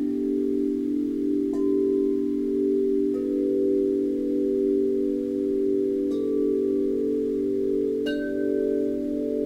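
Grace Note tuned chimes struck with mallets: several low tubes ring together in a long, slowly pulsing sustain, with about four fresh strikes adding new notes over it.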